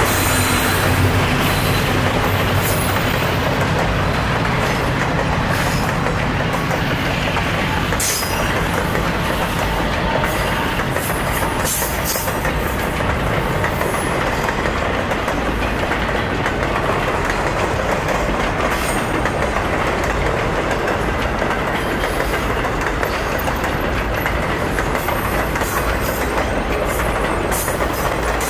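Flatcars of a long freight train rolling past at speed: a steady rumble of steel wheels on rail, with a few sharp clicks scattered through it. A low hum fades out in the first second.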